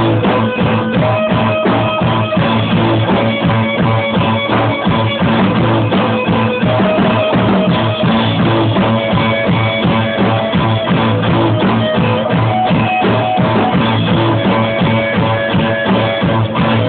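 A rock band playing: a drum kit with cymbals and an amplified guitar, loud and steady, heard from right behind the drums.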